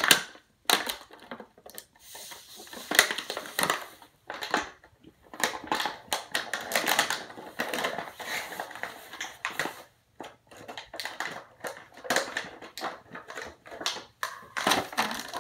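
Toy packaging being handled and opened: irregular crackling and rustling of plastic and cardboard, with scattered clicks.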